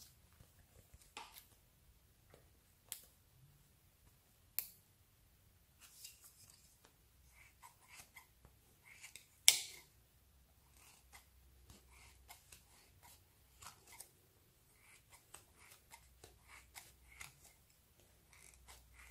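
Scissors snipping through a soft foam squishy toy: scattered faint cuts and clicks, with one sharper, louder snip about halfway through.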